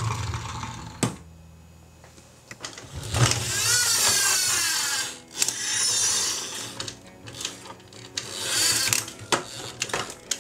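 Electronic sound effects from a toy police car: a warbling, siren-like tone over a harsh hiss, in three bursts, the longest starting about three seconds in. Sharp clicks of the plastic toys being handled come between them.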